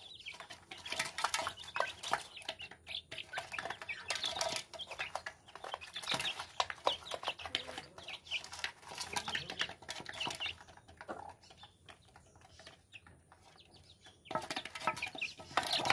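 A flock of young chickens clucking and cheeping as they peck grain from a concrete feed bowl, with many quick taps of beaks in the feed. The sounds thin out for a few seconds past the middle, then pick up again near the end.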